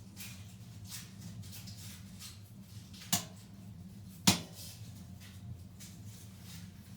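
Soft rustling and handling noises over a steady low hum, with two sharp clicks about a second apart near the middle.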